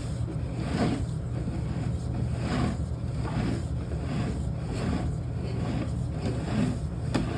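A steady low engine-like hum with soft rushing swells about once a second.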